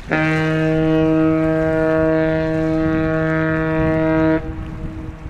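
Ship's whistle sounding one long blast of about four seconds, a steady deep tone that cuts off sharply and echoes briefly after it stops. Wind and water noise run underneath.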